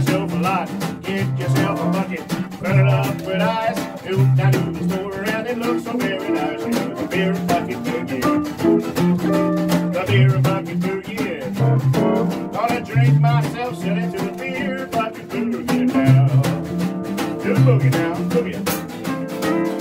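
Live rockabilly boogie played on acoustic and electric guitars, with a steady, bouncing run of bass notes and a man singing over it.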